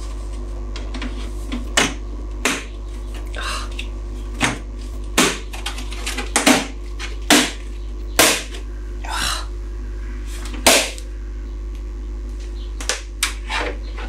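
Hands working on a steel PC tower case and its cables: about a dozen sharp, irregularly spaced clicks and knocks, with a few short rustles between them.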